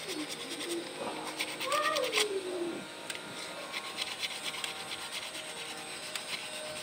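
A cat meowing: a drawn-out call that rises and falls in pitch, loudest around two seconds in. Under it runs a steady fine scratching from hand work on a part.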